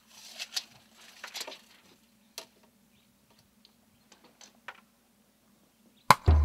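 Faint, scattered clicks and rattles of a steel tape measure being pulled out and handled, over a low steady hum. A sudden loud sound cuts in just before the end.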